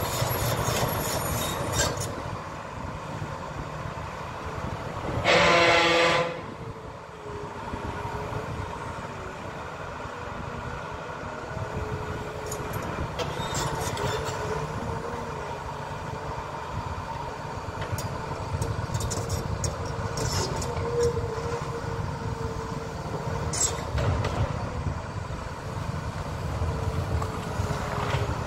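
A heavy engine's low steady rumble with a faint wavering whine. A horn sounds once for about a second, around five seconds in. Light knocks come here and there in the second half.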